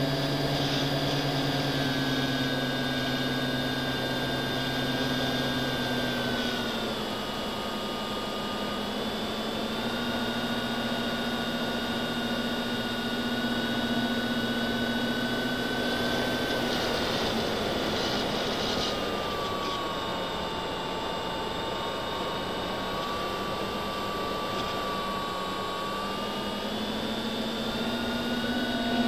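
Electric motors and propellers of an FPV aircraft whining steadily in flight, the pitch shifting with throttle: it drops about six seconds in, rises again around ten seconds, dips around nineteen seconds and climbs near the end.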